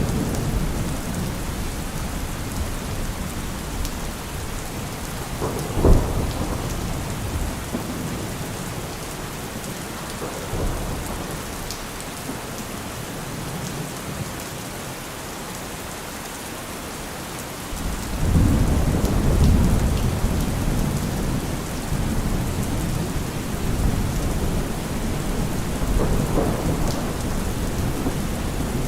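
Steady rain with thunder: a sharp crack of thunder about six seconds in, and a long low rumble of thunder rolling in past the middle.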